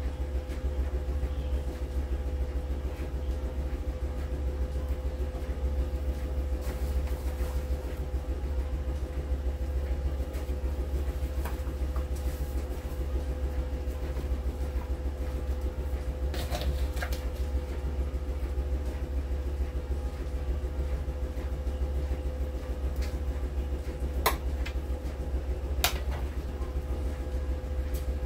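Steady low hum with a constant faint tone running underneath, broken by a few light clicks and taps.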